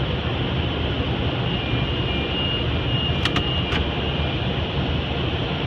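Steady rushing noise of a touchless car wash's water jets and equipment working over the car, heard from inside the cabin, with three short clicks a little after three seconds in.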